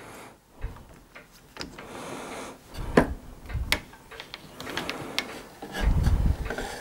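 A lathe's wooden faceplate, with an aluminium plate screwed to it, being turned slowly by hand to check its clearance before cutting: scattered clicks and knocks of handling, with two sharp clicks about three seconds in and a low thump near the end. The lathe motor is not running.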